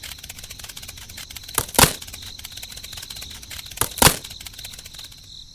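Sharp knocks in two close pairs, about two seconds apart, over a steady hiss.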